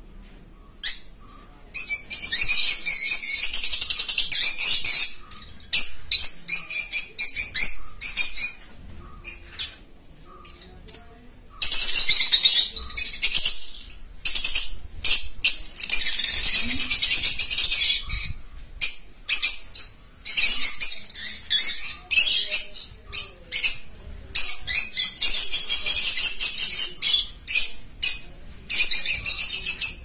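A colony of lovebirds and budgerigars chattering in a shrill, dense chorus, in stretches of a few seconds broken by short lulls.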